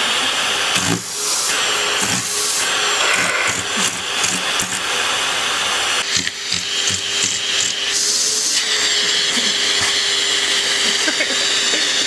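Vacuum cleaner running with a steady hiss, the note of the motor shifting about six seconds in and again a little later, with scattered knocks and bumps.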